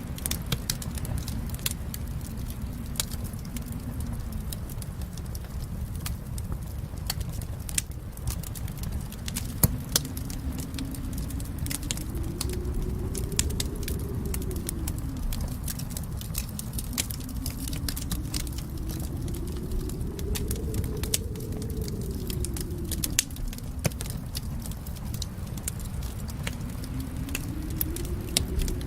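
Wood fire crackling and popping over a steady low rumble, with a soft low hum that slowly rises and falls in pitch three times.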